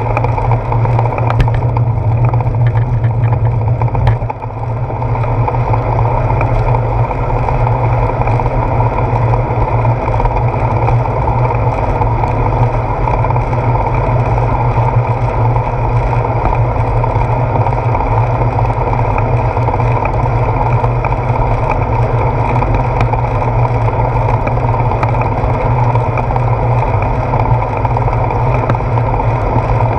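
Steady wind and road rumble picked up by a handlebar-mounted GoPro Hero 4 while the bicycle rides along a wet road, dipping briefly about four seconds in.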